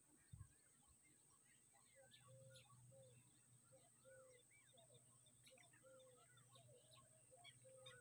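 Faint, busy chorus of wild birds calling over the marsh: many short chirps that rise and fall, and a short lower note repeated over and over. There is a soft low bump just after the start.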